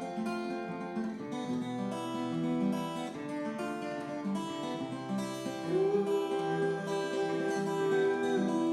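Acoustic guitar strumming chords in a song's instrumental introduction, with one long held melody note over it in the second half.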